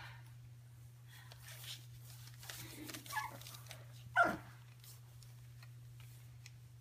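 Young Stabyhoun puppies squeaking, with one short whimper falling in pitch about four seconds in, the loudest sound. Faint rustling as they shift on the bedding, over a steady low hum.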